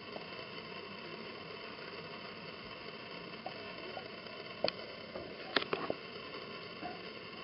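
Steady background hiss with a few short, sharp clicks about halfway through.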